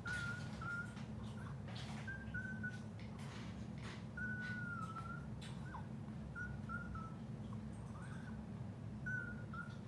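A Pomeranian whining in short, high, thin whines, about a dozen of them, some held for half a second and trailing slightly downward. This is the distress of a dog in the first 24 hours after spay surgery. A steady low hum runs underneath.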